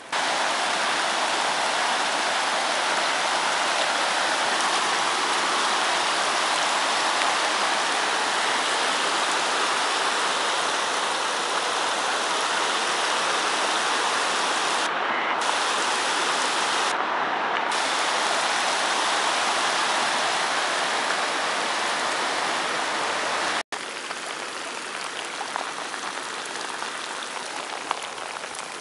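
Steady hiss of heavy rain together with flood runoff rushing down a dirt driveway turned stream. It breaks off for an instant about two-thirds of the way through and comes back a little quieter.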